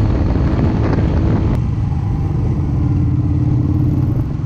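Yamaha SR250's single-cylinder engine running steadily at road speed, heard from the handlebars with heavy wind rush over the microphone.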